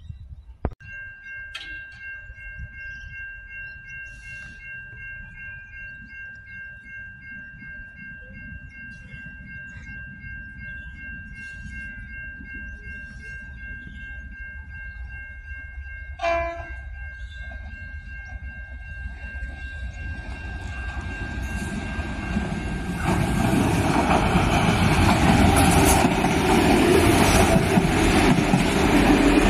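Level-crossing warning bell ringing steadily in even pulses, with a short train horn blast about sixteen seconds in. Near the end an Adelaide 3000/3100 class diesel railcar comes closer and passes, its running and wheels on the rails growing loud.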